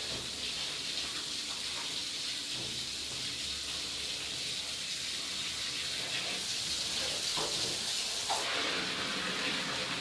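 Steady rush of water with splashing as clothes are hand-washed in a basin; it gets brighter just over eight seconds in.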